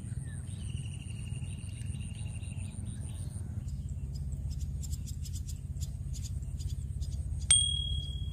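Insects trilling over a steady low rumble. About seven and a half seconds in, a single sharp metallic ping rings briefly.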